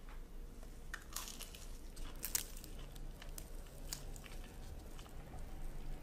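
A toasted frozen waffle torn apart by hand. Its crisp crust gives a quiet run of crackles and crunches, loudest about two seconds in.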